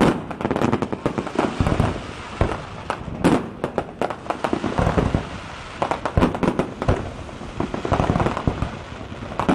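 Fireworks display: a dense string of sharp bangs, several a second, over a continuous crackle.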